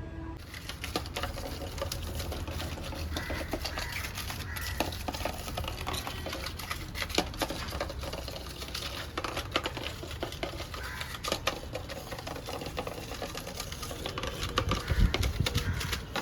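Lucana fishing reel being cranked to wind new line onto its spool: a rapid, uneven run of mechanical clicking and whirring.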